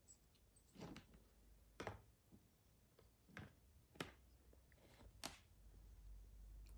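Faint, sharp clicks about a second apart, five or so, as a cockatoo's beak picks peas from a plastic bowl and knocks against the plastic.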